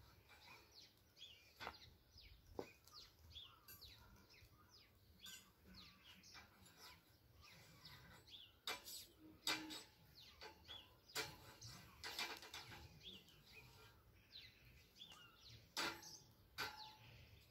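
Faint birdsong, many short chirps and twitters, with scattered sharp clicks and taps through it.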